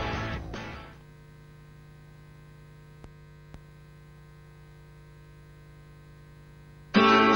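Guitar-backed music fades out in the first second, leaving a steady electrical hum with faint hiss from the VHS playback and two faint ticks about three seconds in. Strummed guitar music cuts back in abruptly near the end.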